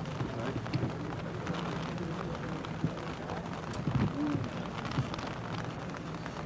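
Steady crackling outdoor noise over a low hum, with scattered clicks and a brief short tone about four seconds in.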